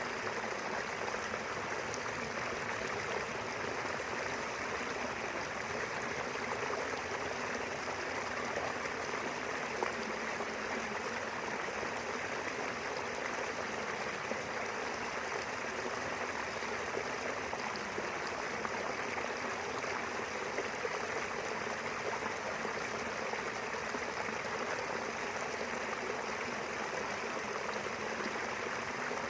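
Small river running steadily over rocks between rice fields, a constant rushing and babbling of water.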